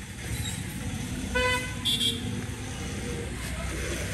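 A motor vehicle engine running in street traffic, with a vehicle horn giving one short toot about a second and a half in.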